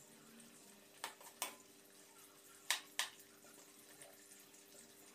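Spatula stirring sliced onions in a metal kadai, knocking and scraping against the pan four times, the two loudest knocks close together about three seconds in, over a faint sizzle of onions frying in oil.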